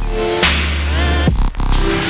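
Background electronic music with heavy bass, drum hits and sustained synth notes.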